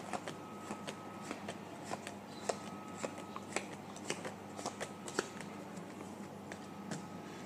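A deck of paper playing cards handled by hand, cards thumbed off the deck one by one and dealt onto a wooden table: an irregular run of light snaps and slaps.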